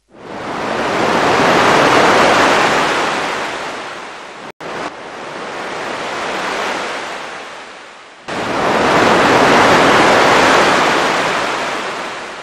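Ocean surf breaking and washing up on a sandy beach, the noise swelling and fading in long surges, with wind on the microphone. It cuts out briefly about four and a half seconds in.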